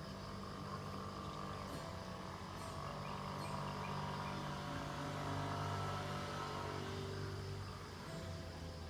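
A motor engine passing by: a steady hum that grows louder to a peak about halfway through, then fades near the end.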